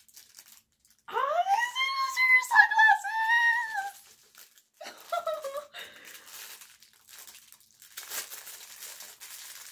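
A high-pitched, wordless excited squeal from a young person lasting about three seconds, followed by a shorter one about five seconds in. Near the end, plastic packaging crinkles as a wrapped item is handled.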